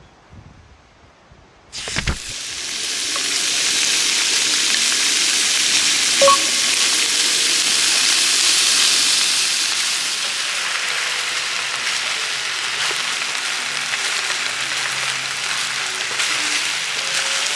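Ingredients dropped into a hot oiled pan, sizzling loudly from about two seconds in and frying steadily after that, with a single short clink about six seconds in.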